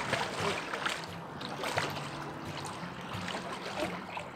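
Water splashing in a shallow river: a sharp splash at the start, with further splashes about one and two seconds in, over moving water. A steady low hum runs underneath.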